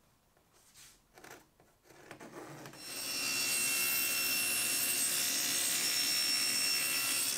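A few faint knocks, then a power saw spins up about two and a half seconds in and runs steadily with a high whine, sawing through wood.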